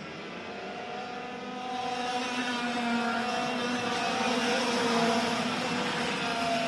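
Several two-stroke racing kart engines running hard at once, their overlapping notes shifting in pitch and growing louder about two seconds in.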